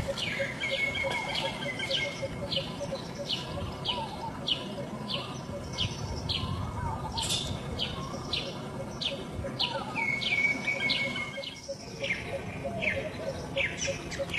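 Birds chirping: a short falling chirp repeated about twice a second, with two longer held whistles, over a faster, steady ticking call lower down.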